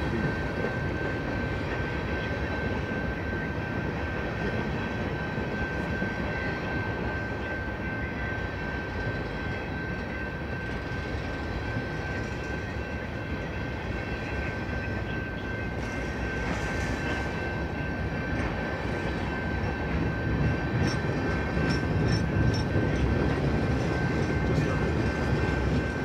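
Freight train cars rolling past at a grade crossing: a continuous rumble and clatter of wheels on rail that grows a little louder near the end, over a steady high-pitched tone.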